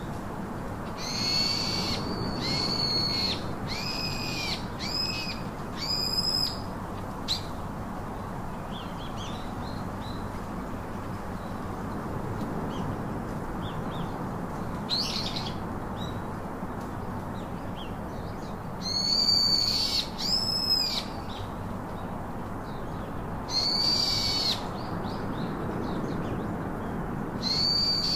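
Bird calls: clear whistled notes, several in quick succession in the first seven seconds, then a few more spaced out, over a steady rushing background.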